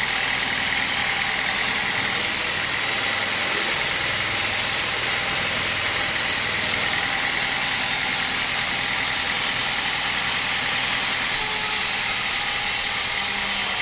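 Vertical bandsaw mill running steadily as its blade saws lengthwise through a teak board, a continuous machine noise with a steady high whine.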